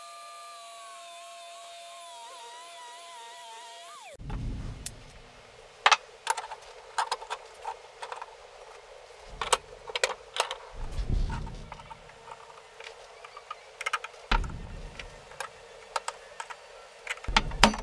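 An angle grinder cutting steel, a steady whine that wavers slightly in pitch under load, cut off abruptly about four seconds in. Then steel channel pieces are handled and laid out on a wooden workbench: irregular metallic clicks and knocks with a few duller thumps.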